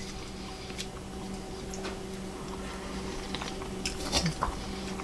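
Faint, scattered clicks and scrapes of a metal knife and fork on a glass plate as meat is cut, over a steady low hum.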